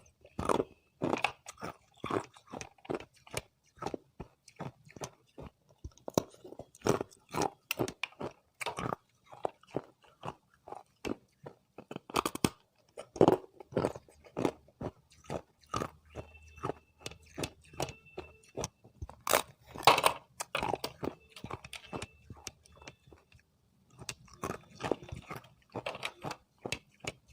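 Hard ice being bitten and chewed close to the microphone: a run of sharp, irregular crunches, a few a second, with a brief pause near the end.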